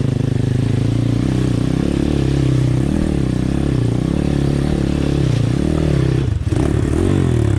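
The 150cc-swapped Apollo RFZ pit bike's single-cylinder four-stroke engine pulling up a steep, rocky trail climb, its pitch wavering up and down with the throttle. About six seconds in it briefly drops, then revs up and back down.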